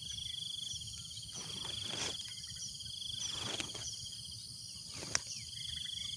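Insects trilling in repeated pulsing phrases about a second long, with fainter higher chirps above. A few short rustles and clicks come from a woven plastic sack being handled, the sharpest about five seconds in.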